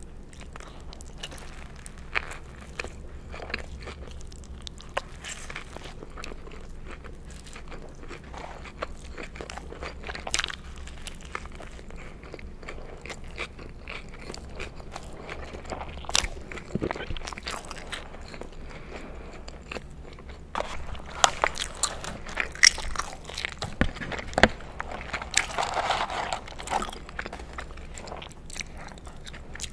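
Close-miked eating sounds: biting and chewing a McDonald's Quarter Pounder burger with bacon and lettuce, with soft chews and crisp crunches. The crunching gets louder and more frequent about two-thirds of the way through.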